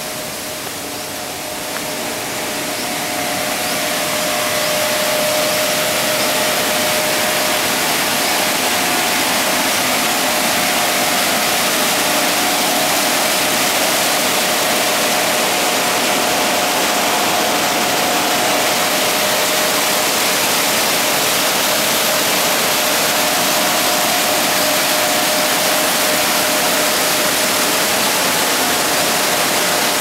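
Steady roar of the Tad Somphamit waterfall, the Mekong's rapids rushing over rock. It swells over the first few seconds and then holds even.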